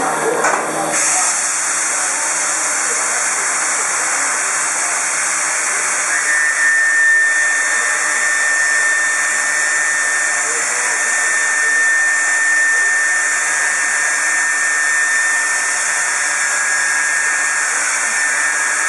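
Shoda NC router running, its spindle trimming a pressure-formed plastic keyboard cover: a steady high hiss, with a thin steady whine joining about six seconds in.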